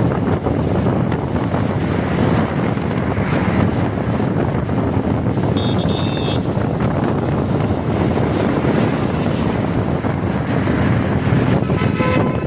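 Steady loud rush of wind buffeting the microphone over heavy rain and road traffic on a flooded street. A brief high tone sounds about six seconds in, and another short tone near the end.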